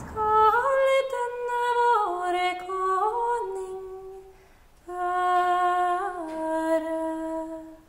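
A woman singing unaccompanied: a slow melody of long held notes in two phrases, each moving down to a lower sustained note, with a short breath between them about halfway through.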